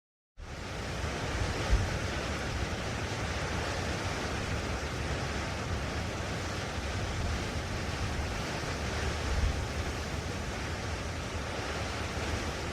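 Blustery wind: a steady rushing with uneven low rumbling buffets of wind on the microphone, starting about half a second in and swelling briefly at about two seconds and again near ten seconds.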